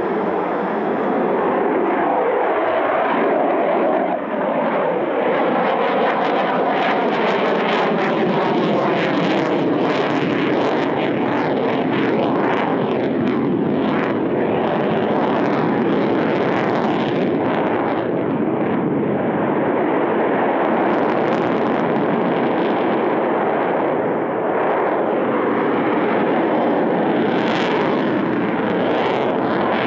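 Su-30MK fighter jet's twin AL-31F turbofan engines running loud and steady through a low display pass, the sound sweeping up and down in pitch as the jet manoeuvres.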